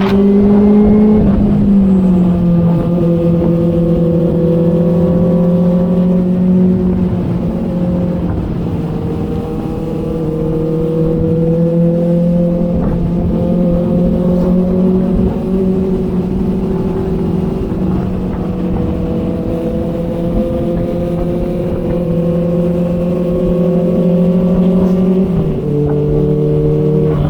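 Inline-four sport motorcycle engine running at steady mid-range revs on the move, with a rough rush underneath. The pitch steps down at a gear change about a second and a half in and again near the end, and otherwise drifts only slowly.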